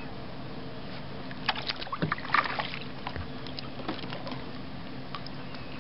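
Water splashing and dripping at a kayak's side: a quick cluster of splashes between about one and a half and three seconds in, then a few scattered drips, over a steady low hum.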